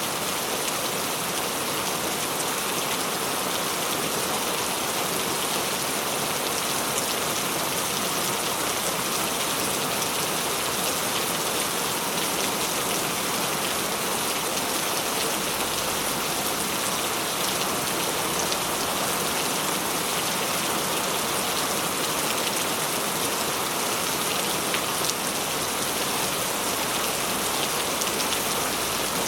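Steady rain falling: an even, continuous hiss with many small drop ticks scattered through it.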